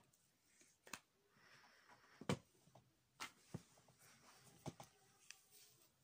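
Faint handling noise: scattered light clicks and knocks as objects are picked up and the phone is moved. The loudest knock comes a little past two seconds in.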